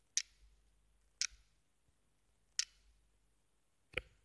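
Four faint, sharp clicks spaced a little over a second apart, the last one slightly fuller.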